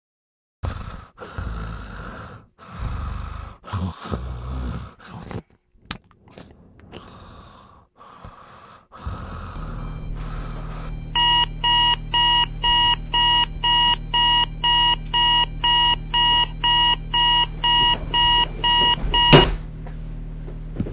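Electronic alarm clock beeping about twice a second for roughly eight seconds, over a steady low hum, then cut off by one loud thump as it is silenced. Before the alarm, a stretch of irregular rustling noises.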